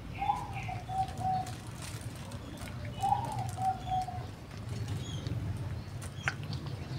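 A dove cooing twice, about three seconds apart, each phrase a higher first coo followed by a few shorter, lower coos, over a low steady hum.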